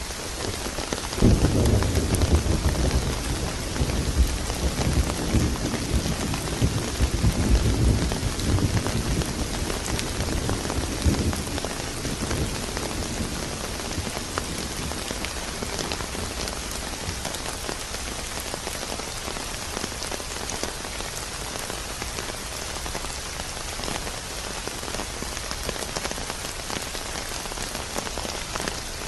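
Steady heavy rain with a peal of thunder. A low rumble breaks in about a second in, rolls on for about ten seconds and fades, leaving the rain alone.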